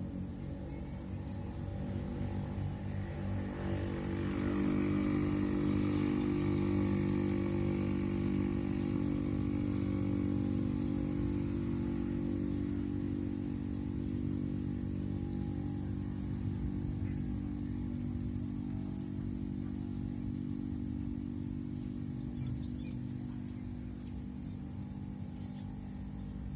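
A small engine running steadily, getting louder about four seconds in and then slowly fading, with a steady high-pitched whine above it.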